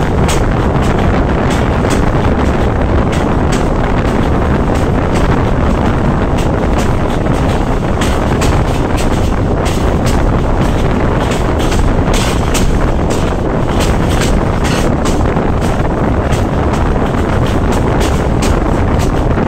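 Bzmot diesel railcar running along a minor line: a steady, loud rumble of engine, wheels and wind, with frequent irregular sharp clicks and clatters.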